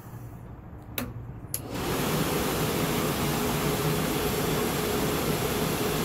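RV propane furnace clicking twice, then its blower motor starting abruptly and running steadily: a rushing of air with a low hum and a steady mid-pitched tone.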